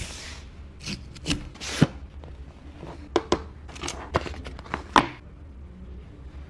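Hands handling a smartphone's cardboard retail box: a short slide of the box across a wooden tabletop, then a series of sharp taps, clicks and rubs as the box is opened and the inner trays and cable are lifted out. The handling stops about five seconds in.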